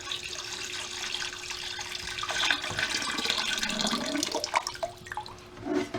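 Water pouring and splashing into a basement sump pit, a steady rush with a few surges, as the pit is filled to lift the new sump pump's float switch; the level is not yet high enough to start the pump.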